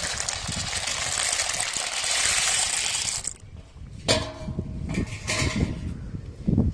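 Dry pasta poured into a pot of boiling water: a steady rattling hiss that cuts off about three seconds in. A brief ringing tone follows about a second later, then a short hiss.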